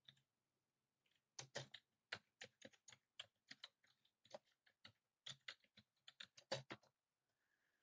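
Typing on a computer keyboard: a quick run of key clicks that starts about a second and a half in and stops near the end.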